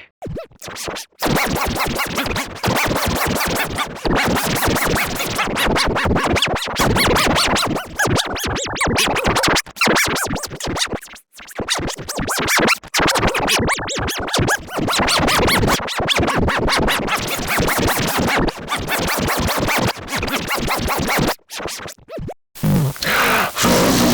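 Intro music chopped into rapid stuttering fragments, like record scratching. It breaks off briefly about halfway through and again just before the end.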